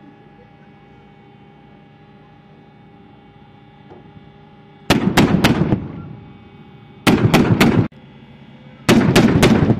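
Three short bursts of automatic weapon fire, each of three or four rapid shots, coming about two seconds apart from about five seconds in, over a steady engine hum.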